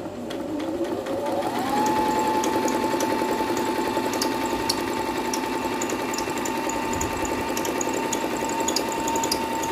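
Merritt 5000 electric sewing machine stitching fabric. The motor whine rises in pitch as it speeds up over the first couple of seconds, then runs at a steady speed with the fast, even chatter of the needle.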